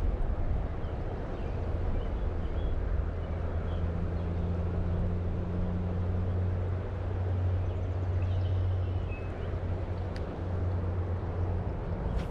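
Rain-swollen creek running hard, a steady rush of water. A low steady drone runs underneath and fades out near the end, and there are a few faint bird chirps.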